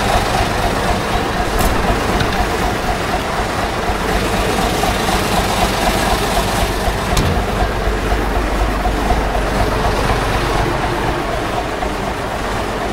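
Diesel engine of a 1980 Škoda RTO fire truck running steadily, back to life after standing for ten years.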